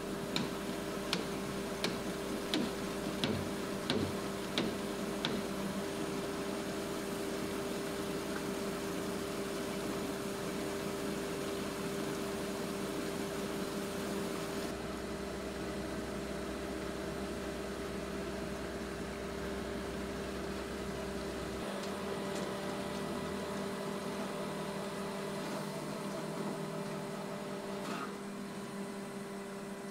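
Concrete mixer truck engine running steadily, a constant drone with several steady tones and a small shift in its low end a couple of times. Over the first five seconds there is a regular series of about eight sharp clicks, roughly two-thirds of a second apart.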